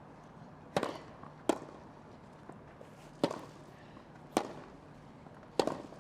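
Tennis ball struck by rackets and bouncing on a grass court during a rally: five sharp pops, the first two close together and the rest about a second apart.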